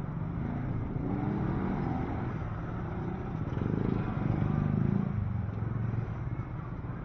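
A motor vehicle engine running, growing louder between about three and a half and five seconds in, over market background noise.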